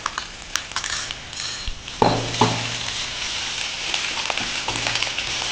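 Ginger garlic paste starting to sizzle in hot oil with browned onions in a frying pan. About two seconds in, a couple of knocks of the spoon on the pan come just as the steady sizzle picks up.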